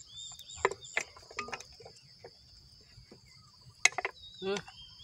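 Insects trilling steadily in the grass, with scattered clicks and knocks of a wooden box fish trap being handled and pressed into a pond bank; the sharpest click comes about four seconds in.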